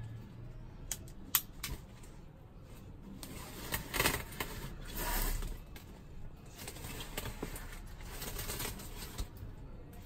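Plastic trigger gun padlock handled in the fingers: a few sharp clicks in the first two seconds, then rubbing and scraping of its plastic and rubber body, loudest around four to five seconds in and again shortly before the end.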